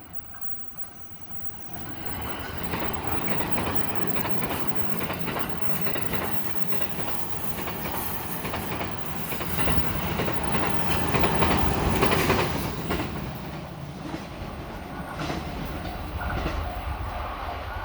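JR East E353 series limited-express electric train passing a level crossing at speed: a long rush of wheel-on-rail noise with clickety-clack over the rail joints. It builds about two seconds in and is loudest around twelve seconds in. The crossing's warning bell rings in a steady repeat, heard again near the end as the train noise eases.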